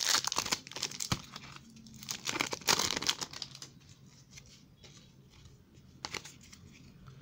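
Trading-card pack wrapper crinkling and tearing as it is ripped open, in several crackly bursts over the first three seconds, followed by quieter rustling and a few light clicks as the cards are handled.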